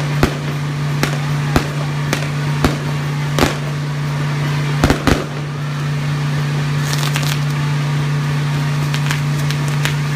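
Castillo fireworks tower burning: separate sharp firecracker bangs every half second to a second, with a close double bang about five seconds in, then dense crackling of spark fireworks from about seven seconds on. A steady low hum runs underneath.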